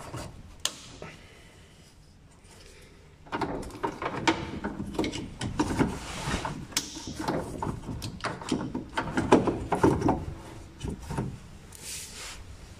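Irregular clicks, knocks and rubbing of plastic and metal as a car's in-line fuel filter and its fuel-line connectors are handled. There is a single click near the start, then a busy run of handling noise from about three seconds in until near the end.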